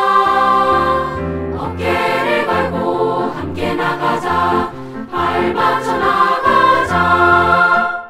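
Boys' and girls' children's choir singing a Korean children's song in Korean, with piano accompaniment.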